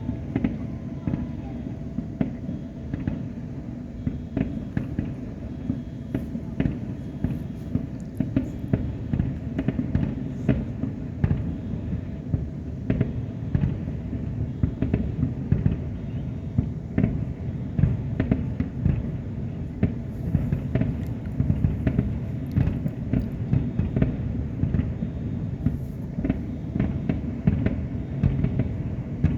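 Aerial fireworks display in full swing: many sharp bangs and cracks of bursting shells one after another over a continuous low rumble.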